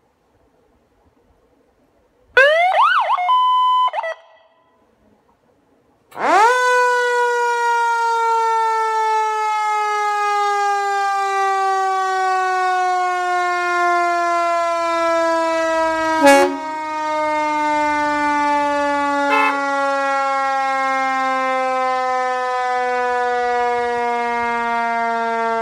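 A short blast of a Whelen electronic siren about two seconds in: quick rising sweeps that settle on a steady tone for a moment. A few seconds later a Federal Q mechanical siren spins up fast to a loud wail and then slowly winds down, its pitch falling steadily, with two short sharp sounds over it midway.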